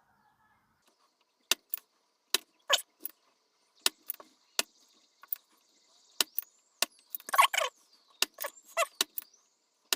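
Irregular sharp clicks and taps of desoldering work on a tuner's circuit board, about twenty in all, bunching up a little past the middle, as the legs of a chip are freed from the board.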